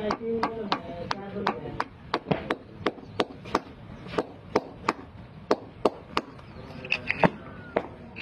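Hammer striking a concrete electricity pole in quick, steady blows, about two to three a second, chipping the concrete open.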